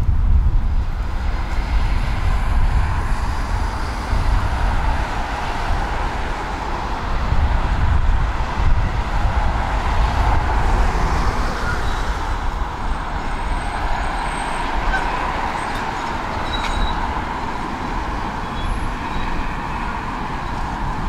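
Steady city street traffic noise: the low rumble of passing vehicles.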